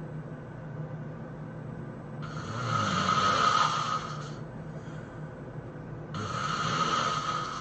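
A person snoring loudly: two long snores about four seconds apart, each lasting around two seconds.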